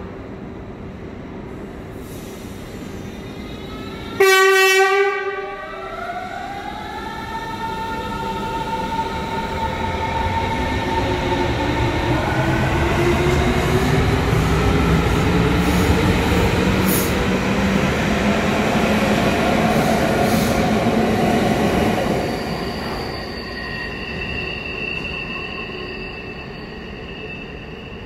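Berlin S-Bahn class 481 electric train departing: a loud signal tone of about a second, then the traction motors' whine rising in pitch as the train accelerates past and away. Near the end, a thin steady squeal of wheels from another S-Bahn train on a curve.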